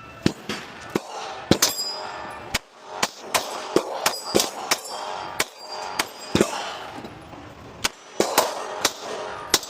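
Scattered gunfire: sharp single shots at irregular intervals, about fifteen in all, some only a fraction of a second apart.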